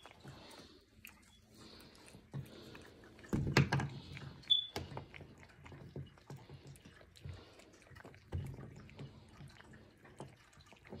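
A small dog chewing hard, rubbery dog treats: irregular soft crunches and clicks, louder about three and a half seconds in and again about eight seconds in.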